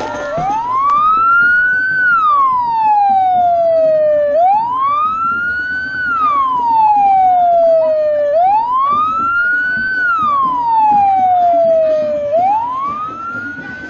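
Police patrol car's siren wailing: a slow rise and a longer fall in pitch, repeating about every four seconds, four sweeps in all.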